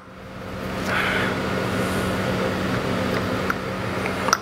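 A steady mechanical hum with a low tone, and near the end a light metallic tap of a hammer on a punch, staking the clutch nut.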